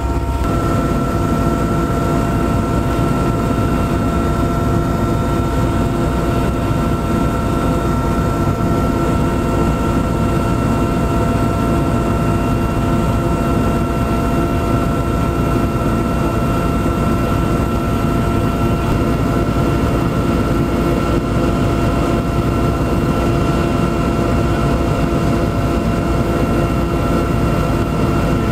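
Aircraft in flight heard from on board: a steady, loud engine drone with several steady whining tones over dense low noise.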